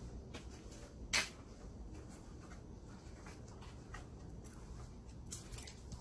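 Faint low background rumble with scattered light scratchy scrapes and clicks; a sharper, louder scrape comes about a second in, and another cluster near the end.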